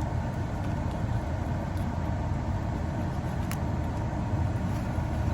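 Steady low rumble of a car's engine idling, heard from inside the cabin, with a single sharp click about three and a half seconds in.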